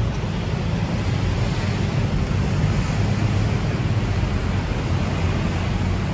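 Steady road-traffic noise, a low rumble without breaks.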